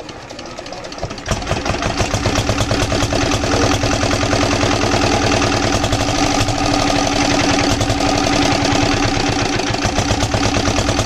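Small single-cylinder diesel pump-set engine, a Comet 5 hp, hand-cranked and catching about a second in, then running with a steady rapid chugging.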